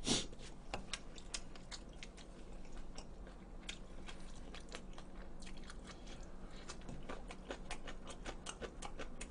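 A man chewing food close to the microphone, with many small mouth clicks and smacks.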